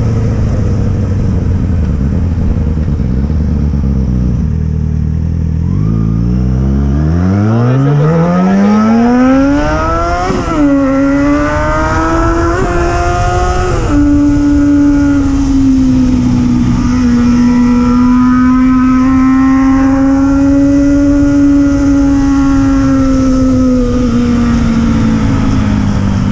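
Yamaha XJ6's inline-four engine accelerating hard. After a low rumble the revs climb steeply, dip briefly at a gear change about ten seconds in, climb again and step down at another shift about fourteen seconds in. They then hold high and nearly steady before easing off near the end.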